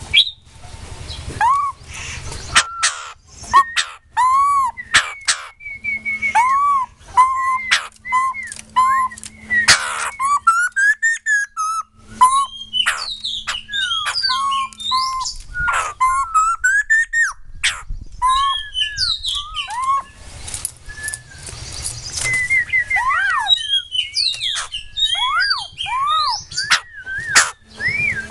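White-crested laughingthrush singing: a long, varied song of repeated arched whistles, quick rising and falling notes, rapid trilled runs and sharp clicking notes.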